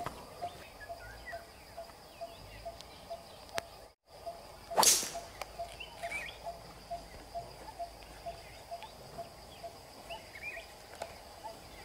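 A golf tee shot hit with a 3-wood: one sharp strike with a short swish, about five seconds in. Underneath, a faint call repeats about three times a second, with scattered small bird chirps.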